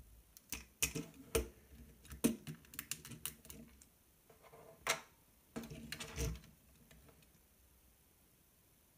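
Hard plastic Lego pieces clicking and clacking as a hand handles a Lego model buggy and pulls its yellow body panel off. This is an irregular run of sharp clicks that stops after about six and a half seconds.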